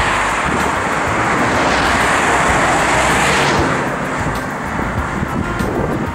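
Road traffic: a vehicle passing close by, a loud rush of tyre and wind noise that fades about four seconds in and leaves a lower, steady traffic sound.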